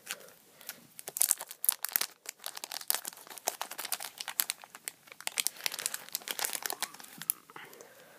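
Clear polypropylene bag crinkling as it is worked open and a slim external hard drive is slid out of it: a dense run of sharp plastic crackles, loudest between one and two seconds in and thinning out near the end.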